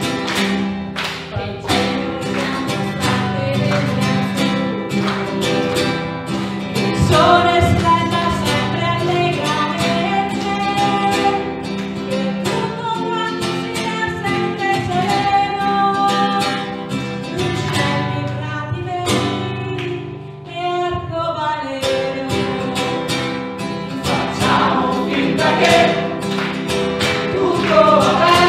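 Several voices singing a song together over an acoustic guitar, with a short drop in the music about two-thirds of the way through.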